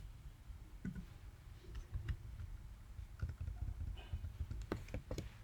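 Faint, irregular clicks of keys on a computer keyboard during typing, a few at a time with short gaps, over a low hum.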